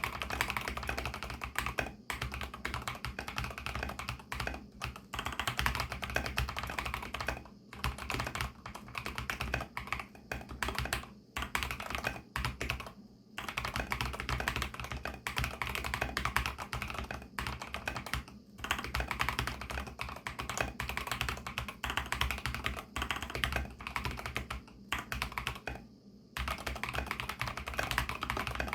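Fast, continuous typing on a fully lubed, silicone-dampened mStone Groove T mechanical keyboard with MMD Milky switches and MA-profile keycaps, the keystrokes running together in a dense stream with brief pauses between bursts.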